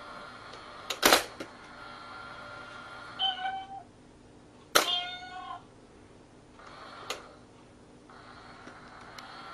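Cat pawing at a small cardboard pop-up box: a sharp knock about a second in, then two short meows, the second starting with a sharp click about five seconds in, and another light knock near seven seconds.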